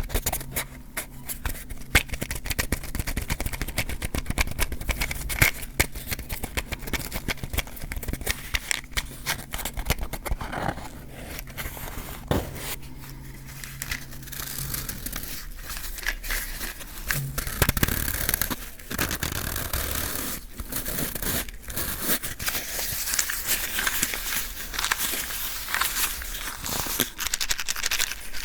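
Close-miked hands handling matchboxes: a dense run of small taps, clicks and scratches with some rustling, the matches not yet struck.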